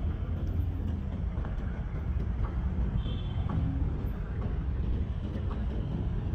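City street traffic: a steady low rumble of passing vehicles, with a few faint ticks and a brief high squeak about halfway through.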